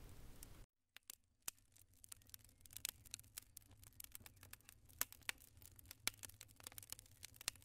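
Faint crackling wood fire: irregular small pops and snaps over a low hum, starting about a second in.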